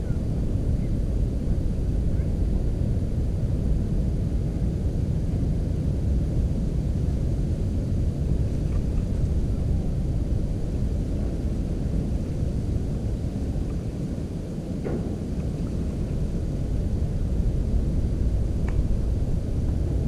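Steady low rumble of wind buffeting the camera's microphone, with two faint clicks in the last third.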